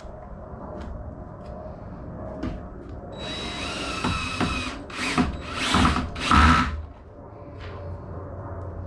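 Cordless drill driving screws into a wooden door frame: a run of about a second and a half, then three short bursts of the trigger, the last the loudest.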